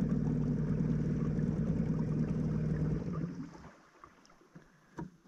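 Small petrol outboard motor running steadily on a boat, then shut off about three seconds in as the boat coasts. A few faint knocks follow near the end.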